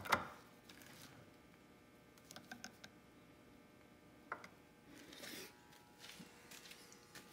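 Mostly quiet, with a few faint clicks and scrapes of a flathead screwdriver tightening the fill screw of an outboard's power tilt/trim fluid reservoir, and a soft rustle about five seconds in.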